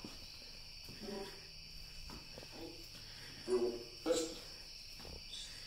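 Crickets chirring steadily in a constant high trill, with a few faint murmured words from people nearby.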